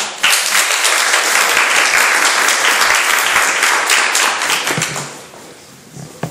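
Small audience applauding, dying away after about five seconds, with a single sharp knock near the end.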